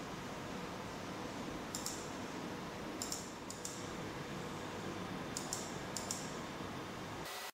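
Computer mouse buttons clicking about five times, mostly as quick double clicks, over a steady hiss of room noise.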